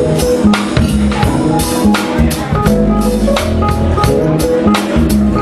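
Live band playing a steady groove: a drum kit keeps a regular beat over a bass line and held keyboard chords.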